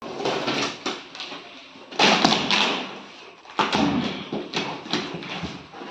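Packing on a new refrigerator being pulled and torn off: rustling and scraping in irregular bursts, with several knocks and thuds.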